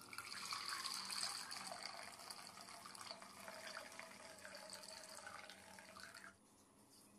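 Milk being poured in a steady stream into a metal cooking pot, the filling sound stopping about six seconds in.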